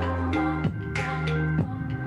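Background music: electronic beat with a deep sliding bass note and regular percussive hits about once a second.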